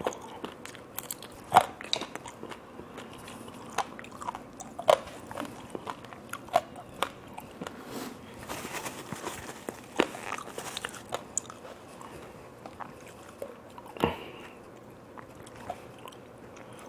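Close-up crunching and chewing of raw vegetables, carrot and lettuce, with sharp, irregular bites and crunches scattered through the chewing.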